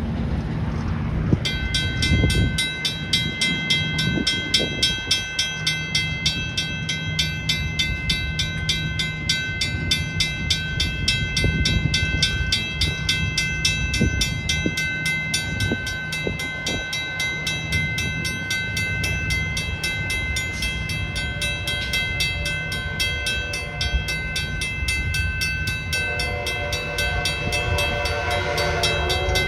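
Trinity Railway Express commuter train's locomotive horn sounding several notes at once as the train approaches, starting a few seconds before the end and growing louder. Before it there is a steady high-pitched pulsing drone over a low rumble.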